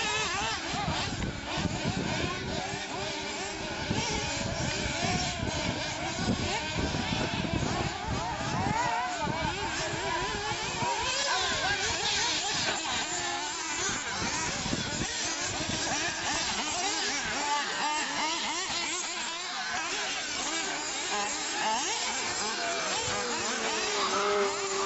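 Small engines of several radio-controlled off-road buggies buzzing together at a high pitch that keeps rising and falling as the cars accelerate and back off around a dirt track.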